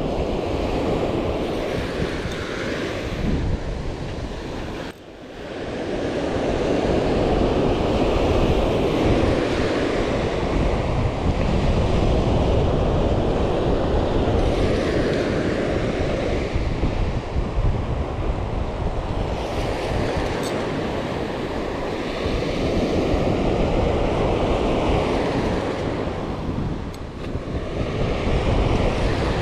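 Surf breaking and washing up the beach, swelling and easing every few seconds, with wind buffeting the microphone.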